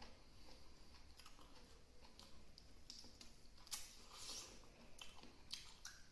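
Quiet hand-eating sounds: fingers mixing and pressing cooked rice on a plate, with small clicks and soft chewing. The loudest moment is a brief click and rustle about four seconds in.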